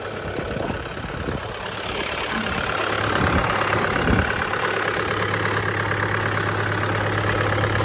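CAT 248B skid steer's diesel engine idling steadily, with a rattle from the exhaust making the noise. It grows louder over the first few seconds, then holds steady.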